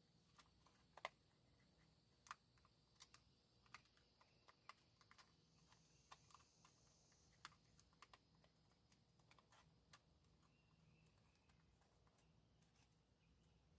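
Near silence with faint, irregular small clicks and ticks, about twenty of them spread unevenly, the sharpest about a second in.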